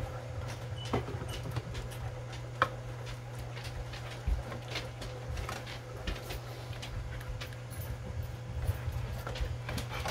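Spatula stirring and scraping a thick buttery mixture in a metal saucepan, with scattered light knocks against the pan over a steady low hum.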